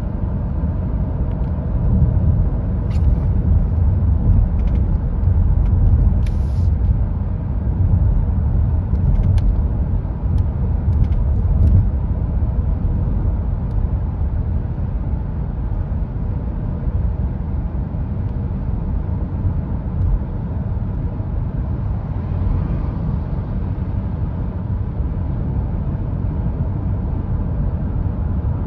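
Steady low road and tyre rumble inside the cabin of a 2022 Hyundai Tucson hybrid cruising at motorway speed, with a few brief faint ticks in the first ten seconds.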